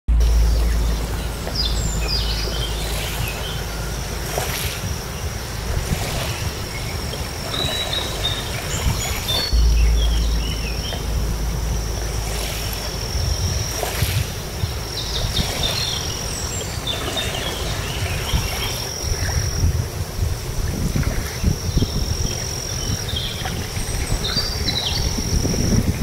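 Small wind-driven waves lapping and splashing on a pebble lake shore, with gusts of wind rumbling on the microphone. Birds chirp now and then, and a thin steady high tone runs underneath.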